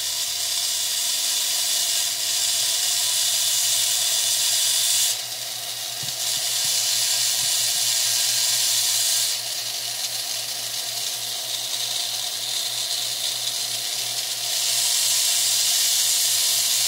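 Rotary tool with a small diamond bit grinding wet Slaughter Mountain fire agate: a steady high hiss over the motor's low hum. It drops in level about five and nine seconds in and comes back up near the end.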